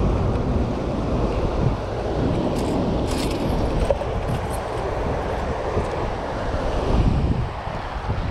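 Wind buffeting the microphone over a steady rush of churning water released through the dam's generators, with a few light clicks about three seconds in.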